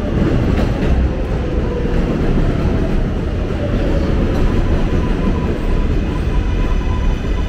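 Elevated 7 subway train rumbling past overhead: a loud, steady low rumble with faint whining tones from the wheels and rails.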